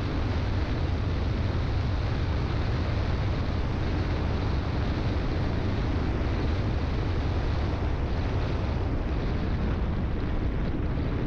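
Steady, heavy wind buffeting on a GoPro action camera's microphone while riding an e-bike at speed, a dense rumble strongest in the low range.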